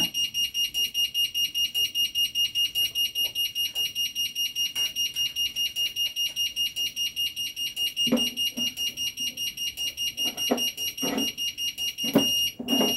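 Electric fence alarm siren sounding a rapidly pulsing high-pitched beep, about five beeps a second, set off because the Nemtek Wizord 4 energizer senses no return on the fence, a fence fault. It cuts off suddenly near the end, with a few short knocks of handling at the energizer in the last seconds.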